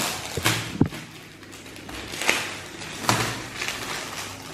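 Clear plastic packaging bag crinkling and rustling as it is handled and opened to take out a card of hair clips, with a few sharper crackles.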